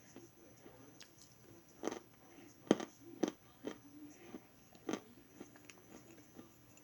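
Close-up crunching bites and chewing of something hard and brittle, in irregular crisp crunches, a few of them much louder than the rest.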